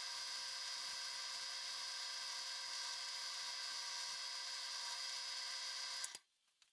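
Drill press spinning a maroon non-woven abrasive wheel, with an aluminium bracket held against it: a steady whine of several tones over a hiss, which cuts off suddenly about six seconds in.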